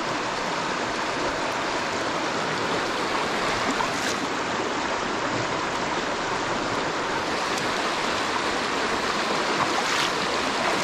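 Mountain stream rushing steadily over rocks close by.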